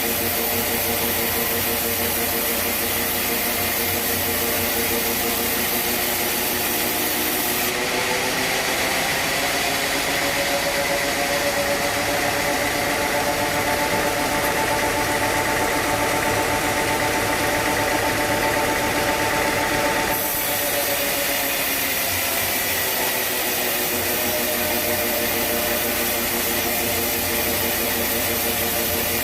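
Sawmill machinery running steadily with a constant mechanical hum. About eight seconds in its tone jumps abruptly to a brighter, higher pitch, and about twenty seconds in it drops back to the lower sound.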